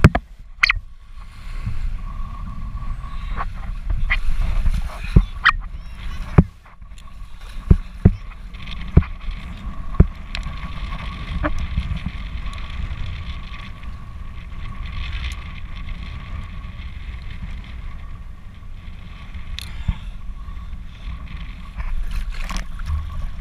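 Kitesurfing across choppy water heard on an action camera's microphone: a steady low wind rumble with water rushing, broken by many sharp knocks and slaps. A faint steady whistle runs from about two seconds in.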